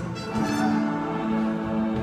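Orchestral accompaniment for a show tune playing held chords with brass, between sung lines and with no voices over it.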